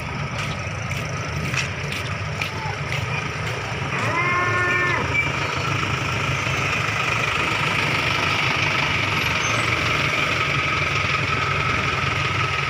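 Vehicle engines running steadily, with a few sharp knocks early on and one short, steady-pitched call lasting about a second some four seconds in.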